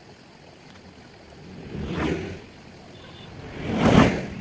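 Vehicles passing on a road: two swelling whooshes that rise and fade, the louder one near the end.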